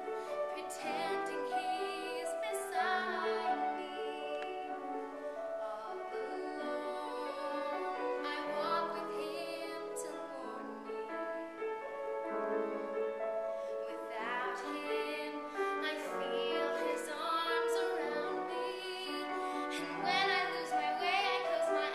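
Solo female voice singing a musical-theatre ballad with vibrato, accompanied by grand piano.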